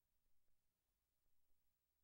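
Near silence: the soundtrack holds only a faint low hum and noise floor.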